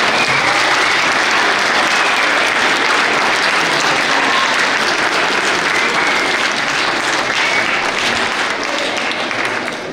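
Audience of children and adults applauding steadily, tailing off near the end.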